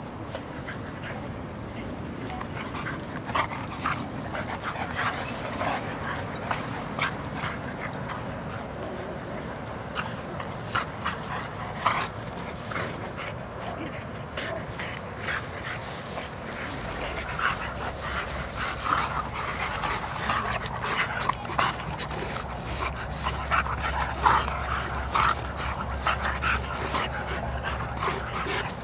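Two dogs, a Bernese mountain dog and a brindle pup, play-wrestling: many short yips and whimpers that come thicker and louder over the second half.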